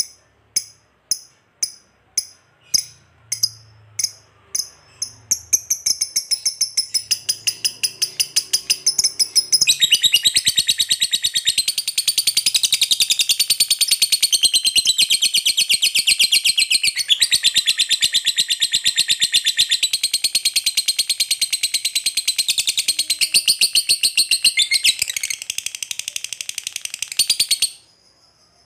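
Lovebird calling: sharp single chirps about twice a second, coming faster after about five seconds, then breaking into a long, rapid, high-pitched chattering trill (the 'ngekek') that lasts about eighteen seconds and stops abruptly near the end.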